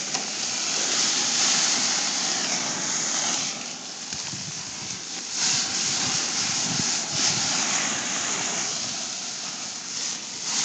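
Hamburgers sizzling on a propane barbecue grill: a steady hiss that dips briefly about four seconds in and again near the end.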